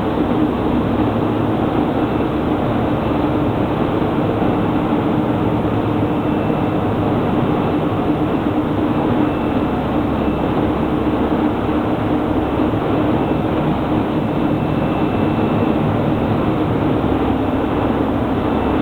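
Steady, loud din of heavy industrial plant machinery running, with a constant hum and a faint high whine that comes and goes.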